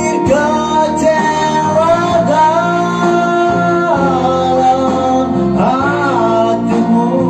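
Background song: a sung melody over guitar accompaniment.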